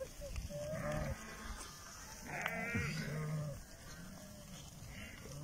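A flock of sheep bleating, the calls overlapping, with two main bouts of calls, the second wavering in pitch.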